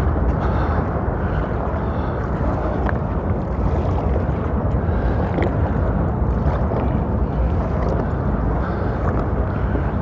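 Steady rushing wind on the microphone, mixed with water moving around the kayak, with a few faint clicks.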